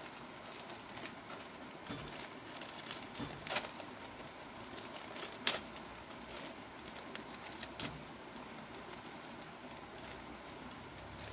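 A plastic bag crinkling and crackling in scattered sharp bursts as it is handled and opened, over a faint steady background hiss.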